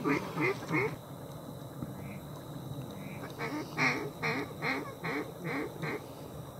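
A run of duck quacks: about three quick quacks at the start, then after a pause a longer string of about seven, loudest at its start and tapering off.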